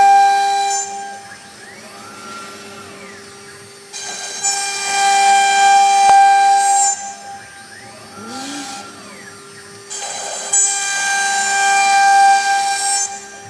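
CNC router's water-cooled spindle running with a steady high whine while its bit cuts grooves into a wood board. The cutting noise swells loud three times: at the start, from about four to seven seconds in, and from about ten and a half to thirteen seconds in. Between these, quieter stretches carry rising and falling whines as the machine moves.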